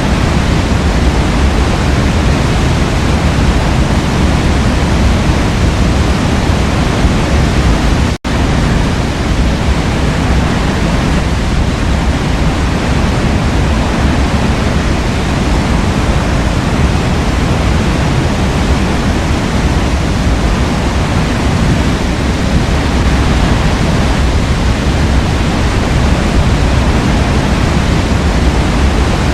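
Forest waterfall: water falling in a steady, loud rush, deepest in the low end, with a split-second dropout in the sound about eight seconds in.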